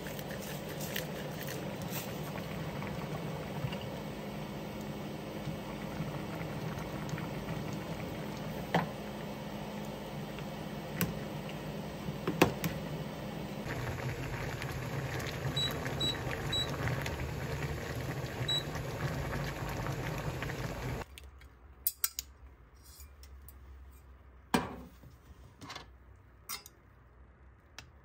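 Stainless steel pot of seafood noodle soup at a rolling boil: steady bubbling, with a few sharp metal clinks of a ladle against the pot. About three-quarters of the way through the boiling cuts off, leaving a quieter stretch of scattered clinks as tongs lift noodles into a bowl.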